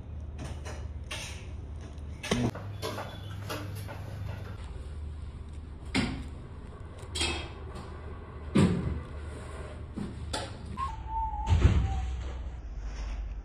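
A few scattered knocks and clatters of objects being handled, over a low steady hum, with a brief squeak near the end.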